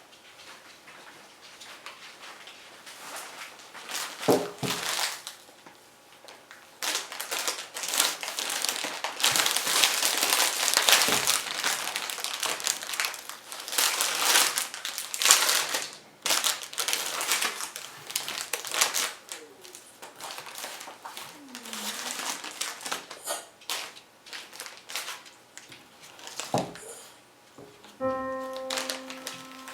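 Irregular crinkling and rustling of something being handled, densest through the middle. Background music comes in near the end.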